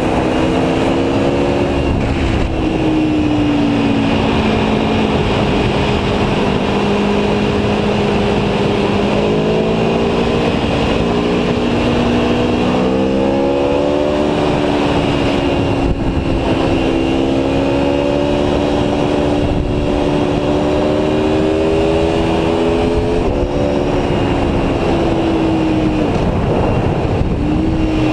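Aprilia Tuono V4 1100's 65-degree V4 engine running under way, its pitch falling, climbing and falling again as the bike slows and speeds up, over a steady rush of wind and road noise.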